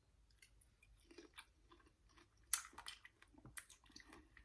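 A person chewing gummy fruit snacks coated in Kool-Aid powder close to the microphone. There are irregular wet mouth clicks and smacks, and the loudest comes a little past halfway.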